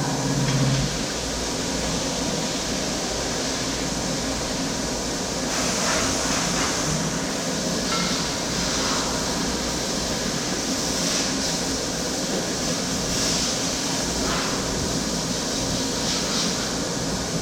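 CNC machine running with a steady mechanical drone, with short hissing sounds now and then from about five seconds in.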